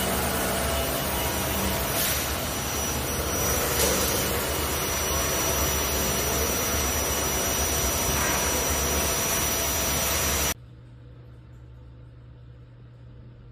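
Eccentric-weight exciter motor of an HB3000+ vibratory stress relief system running at about 4,270 rpm on a welded steel frame: a steady hum with a thin high whine over it. About ten and a half seconds in it cuts abruptly to a much quieter low hum.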